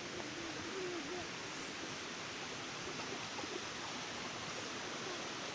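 Steady rush of water flowing over rocks in a shallow stream fed by a small waterfall, an even hiss with no breaks.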